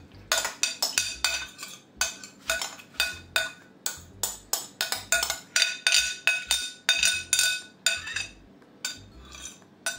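Metal spoon clinking and scraping against a glass mixing bowl, scooping out the last of a pasta filling: a quick, uneven run of sharp clinks, each with a brief ring.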